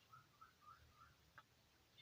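Near silence: room tone with a few faint, short chirping sounds in the first second and one small click.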